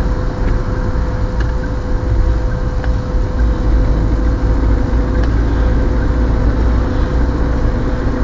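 Car engine and tyre noise heard from inside the cabin while driving steadily in third gear. A continuous low rumble, with a faint steady whine that fades out about five seconds in.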